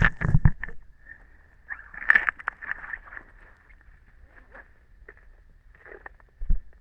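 Handling noises of a wet hiking boot being worked on: a few loud knocks at the start, then scattered clicks and rustles, with a low thump near the end.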